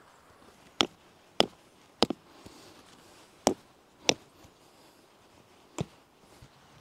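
A hand-held stone hammering a metal tent peg into the ground: about six sharp knocks at an uneven pace, one of them doubled, with a longer gap before the last.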